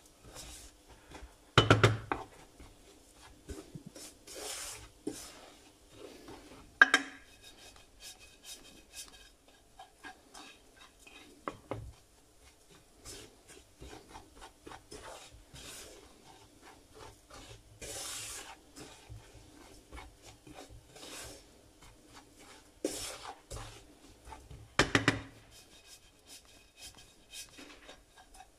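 Wooden spoon stirring and scraping breadcrumbs as they toast brown in a frying pan, a soft, uneven scraping. A few sharp knocks of the spoon on the pan stand out, loudest about two seconds in, again near seven seconds and near the end.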